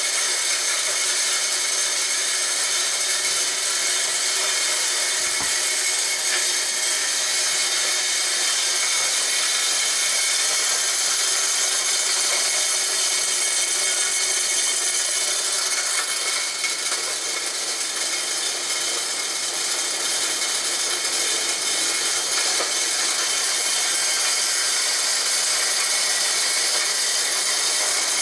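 Homemade corn grinder made from a water pump, running steadily and grinding corn with a harsh, even noise that stays high in pitch and does not break off.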